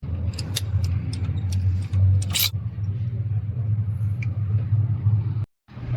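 A steady low mechanical hum, probably an engine or motor, with several sharp metallic clicks and clinks in the first couple of seconds. It cuts off abruptly near the end.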